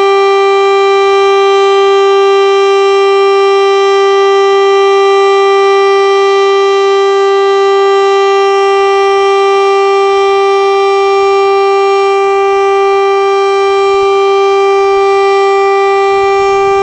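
KIRKE 400 civil-defence siren sounding one loud, steady tone that holds the same pitch throughout: the continuous test tone of a routine siren test.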